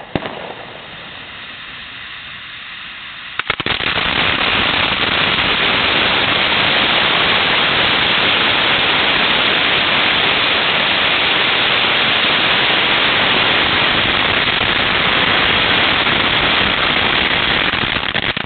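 A tightly rolled mass of about 16,000 Black Cat firecrackers dusted with potassium nitrate going off: a few seconds of quieter hissing as the roll catches, then, about three and a half seconds in, a sudden switch to a loud, dense, unbroken rattle of countless bangs merging into one noise. It holds steady and starts to thin out right at the end.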